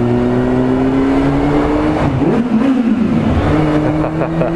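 Yamaha FZS600 Fazer's inline-four engine revving hard under acceleration, its pitch climbing steadily. About two seconds in the pitch breaks and wavers briefly, as at a gear change, then climbs again, with wind noise underneath.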